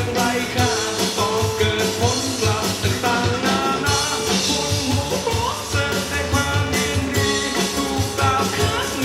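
A song with singing and a steady beat, played through Genesis Naptune GT65.2 component speakers on their original passive crossover, with no EQ applied.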